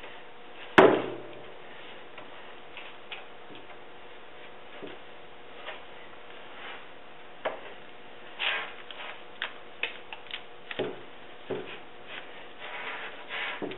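A gel-coat brush working over a fiberglass mold: a sharp knock about a second in, then scattered light taps and short scraping brush strokes, more of them in the second half.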